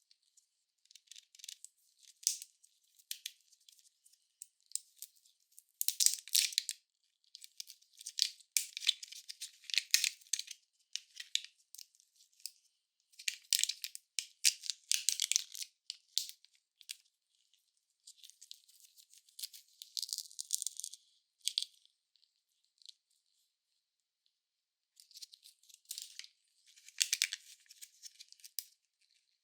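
Candy and toy wrappers crinkling and rustling in irregular bursts, with short silent gaps between handfuls.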